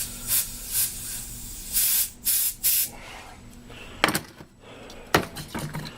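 Compressed air blown in short hissing blasts through a small-engine carburetor's metering jet to clear ethanol-fuel deposits, about five blasts in the first three seconds. Two sharp clicks of the part or tool being handled follow.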